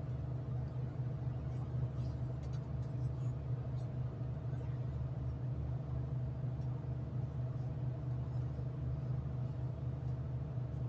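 Steady low hum and rumble of a diesel V/Line passenger train running, heard from inside the carriage, with a few faint clicks in the first few seconds.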